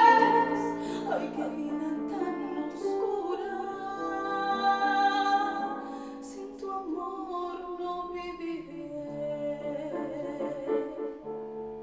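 A woman singing a bolero in a theatrical, operatic style over musical accompaniment. Her long held note ends in the first half second, and the accompaniment then carries on more quietly with sustained chords that change in steps.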